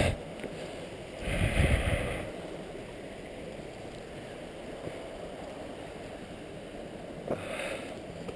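Hillsborough River rapids rushing steadily. About a second in there is a short low rumbling bump, and near the end a brief click and rustle, handling or brush noise as the walker moves along the bank.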